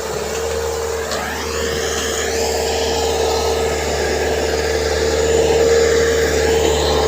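Excavator's diesel engine running steadily at work, with a strong steady whine over it and a few rising swells in pitch early on, growing a little louder past the middle.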